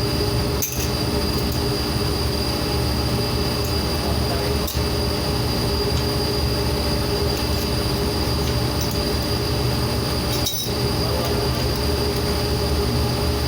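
Steady industrial machinery drone with several constant humming tones, broken by three momentary dips.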